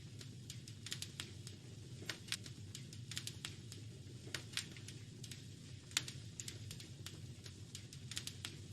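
Wood fire crackling in a fireplace: irregular sharp pops and snaps over a steady low rumble, the loudest snap about six seconds in.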